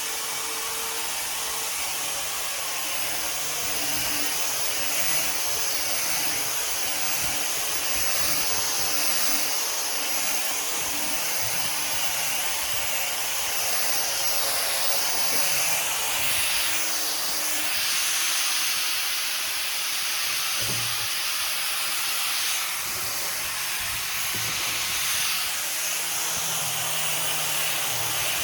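Orbital sander running steadily on a wooden table top, a continuous hissing whir. Its pitch shifts briefly about halfway through and again later as the sander is moved.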